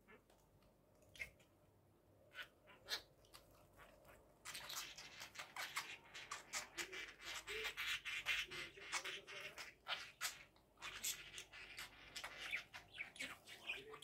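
Budgerigars chattering: a continuous warble of rapid chirps and clicks that starts about four seconds in, after a few scattered clicks.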